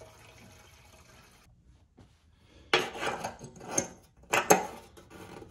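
Faint hiss of gasoline pouring into a motorcycle's fuel tank that stops about a second and a half in, followed by a handful of sharp clanks and knocks of metal being handled, the loudest two close together near the end.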